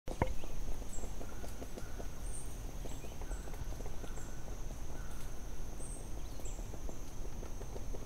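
Forest ambience: a steady high insect-like buzz with short high chirps every second or so, over a low rumble and many small ticks and crackles. There is a sharp click at the very start.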